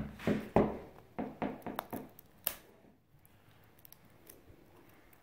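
Fingers picking and peeling at the wrapping of an L.O.L. Surprise toy ball: a run of sharp crinkles and clicks over the first two and a half seconds, then only faint ticks. The layer is stubborn and hard to open.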